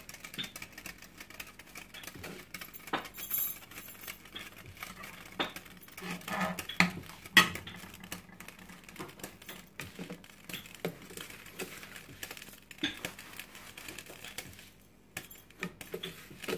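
Steel ladle clinking and scraping against a stainless steel karahi: a scatter of light metallic clicks, the loudest about seven seconds in.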